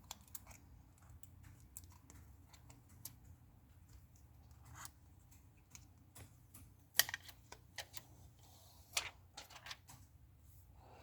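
Faint, scattered small clicks and scratches of hands and tools handling the new iPhone XS screen and its protective tapes, with a sharper click about 7 s in and again about 9 s in, over a faint steady low hum.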